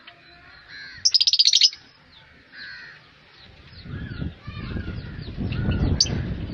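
African lovebirds chirping over and over, with a loud, rapid, shrill chatter about a second in. A low rumbling noise comes in over the second half.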